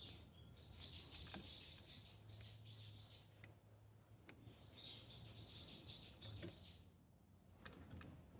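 A bird singing faintly, heard twice: a phrase of quick, evenly repeated high chirps, about four or five a second and lasting a little under two seconds each time.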